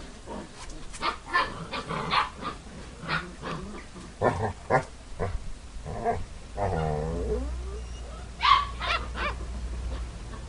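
Basset hound puppies play-fighting, giving a rapid run of short growls and yaps. About two-thirds of the way through comes one longer, wavering growl, followed by a couple of sharp, high yaps.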